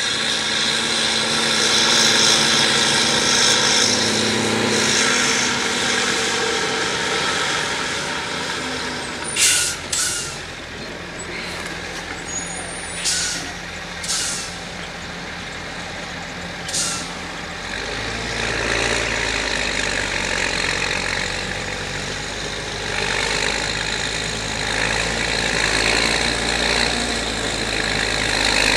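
New Holland T6080 tractor's six-cylinder diesel engine running steadily while pulling a Major slurry tanker. Five short, sharp hisses of air break in about a third of the way through. A deeper engine rumble grows from past the middle as the tractor comes closer.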